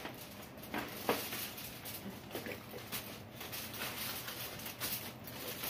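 Scattered clinks, scrapes and rustles of metal tongs and aluminium foil trays as food is served out.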